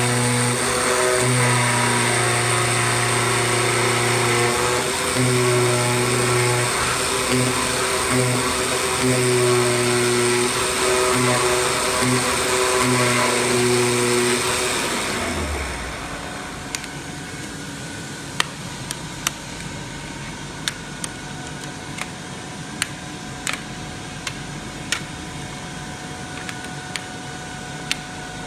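Flatbed CNC digital cutter cutting a PVC sheet: pitched motor whines switch on and off as the cutting head moves, over a steady hiss. About fifteen seconds in, the machine noise drops to a lower hum, and sharp plastic clicks follow as the cut PVC pieces are pressed out of the sheet by hand.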